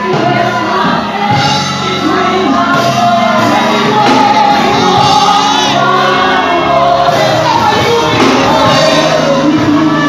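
Live gospel praise singing through microphones: a woman sings lead over a group of backing singers, with music underneath.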